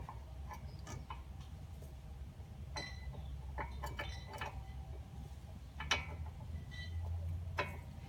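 Scattered light metallic clicks and clinks, about eight over several seconds, as small brake caliper hardware and tools are handled, over a steady low hum.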